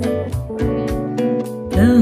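Live song with acoustic guitar accompaniment playing through a short gap between sung lines; a woman's singing voice comes back in near the end with a rising note.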